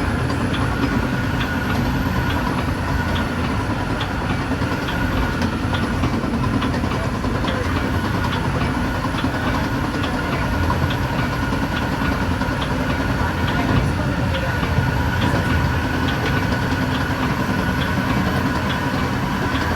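Metra BNSF commuter train running at speed: a steady rumble and hum, with faint, frequent clicks of the wheels on the rails.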